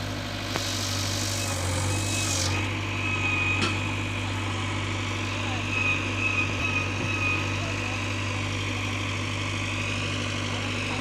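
Diesel engine of a tractor or backhoe idling steadily.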